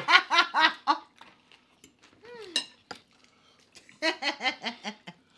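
Tableware clinking against a metal baking tray as hard taco shells are picked up, a few sharp clicks in the middle. Short rhythmic bursts of a voice come at the start and again near the end.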